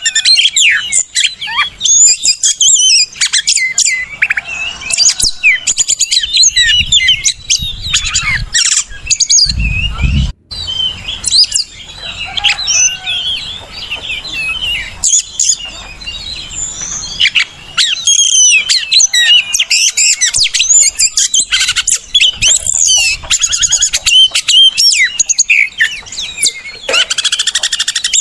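Oriental magpie-robin (kacer) singing a loud, rapid, varied song of chirps and whistles, used as a lure recording to get a silent bird to sing. A low rumble sounds under the song for a few seconds partway through.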